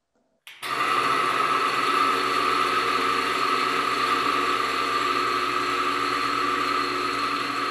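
Reichert friction-wear tester switched on: about half a second in, its electric motor starts and the machine runs with a steady whine over a hiss as the static steel cylinder roll rubs on the rotating bearing ring in fresh engine oil under load. This is the abrasion phase, before the oil has built a load-bearing film.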